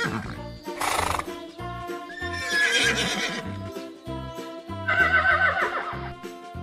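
Horses neighing twice, with wavering whinnies about two and five seconds in, over background music with a repeating bass beat.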